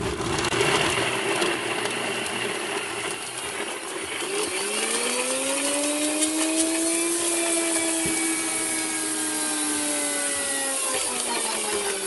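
NutriBullet Select blender motor running, chopping purple onion and garlic in its cup. Its whine rises in pitch about four seconds in and falls slowly near the end as the load shifts while the blender is tipped and shaken to work the pieces down onto the blades.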